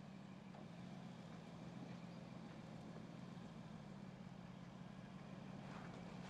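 Mercedes-Benz G 500's 4.0-litre biturbo V8 running at low revs with a faint, steady low hum as the vehicle crawls slowly over rough dirt.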